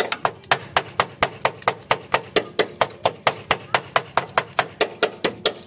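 Hammer striking metal in a fast, even rhythm, roughly five sharp ringing blows a second.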